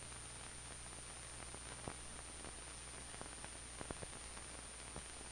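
Steady hiss with a low hum and a thin high whine, broken by a few faint clicks and pops: surface noise of an old film soundtrack.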